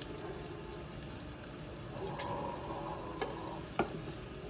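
Bacon frying in a stainless steel pan, a low steady sizzle, with a few light clicks from a wooden spoon against the pan as it is stirred.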